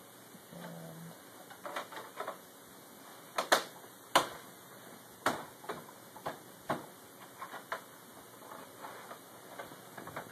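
Plastic clicks and knocks as an Xbox 360 faceplate is fitted and snapped onto the front of the console, a string of irregular clicks with the two loudest about three and four seconds in.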